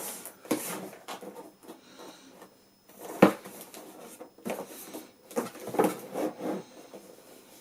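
Handling noise of PC parts being moved about: rustling and rubbing with scattered clicks, and one sharp knock about three seconds in.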